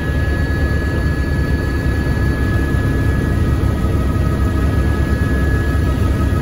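Helicopter in flight, heard from the cabin: a steady, loud rumble of rotor and engine with a constant high whine running over it.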